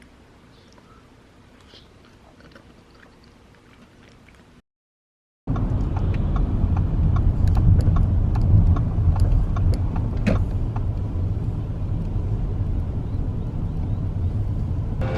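Faint small clicks and taps, then, after an abrupt cut, a loud steady low rumble with scattered clicks, like a moving vehicle.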